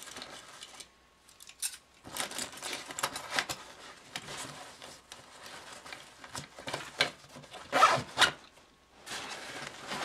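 A fabric tactical backpack being handled: rustling, scraping and small clicks as items are tucked into a pocket and the bag is turned over, with two louder scrapes about eight seconds in.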